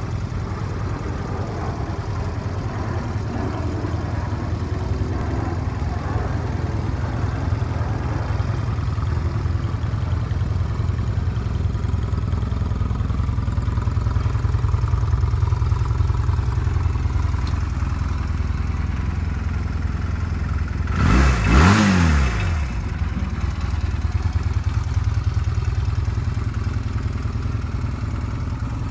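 A 1985 Honda Rebel CMX250C's small air-cooled parallel-twin engine idling steadily through its stock exhaust. About two-thirds of the way through, it gives one brief blip of the throttle and settles back to idle.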